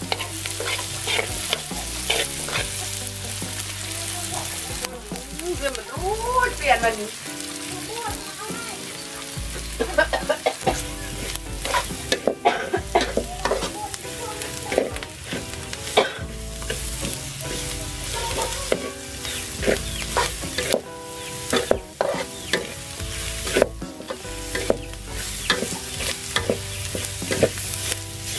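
Chopped green vegetables sizzling as they fry in a metal wok, while a spatula stirs and scrapes them against the pan in frequent short scrapes.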